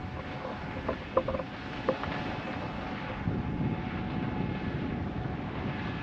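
Wind rushing over the microphone of a camera flown on a drone, a steady rumbling noise with a few short sharp clicks about one and two seconds in.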